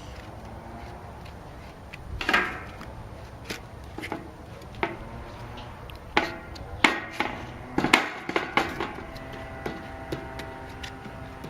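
Grip tape being laid onto a wooden skateboard deck and pressed down, making a series of knocks and thumps on the wood. The loudest comes about two seconds in, and a quick cluster follows between about six and nine seconds.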